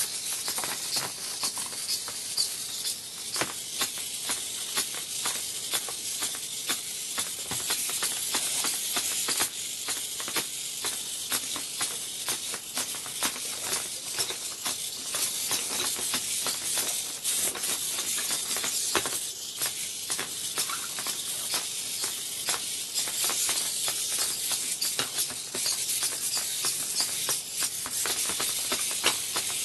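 Small hobby servos of a three-servo 3D-printed hexapod robot whirring as it walks, its legs making many quick clicks and taps on the hard board, over a steady high hiss.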